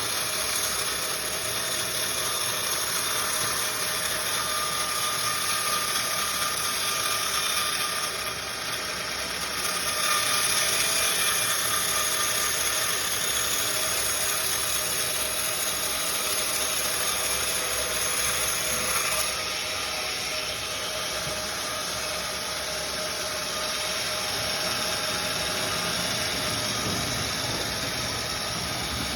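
Sawmill machinery running steadily, a continuous mechanical drone with a high hiss that shifts a little about eight and nineteen seconds in.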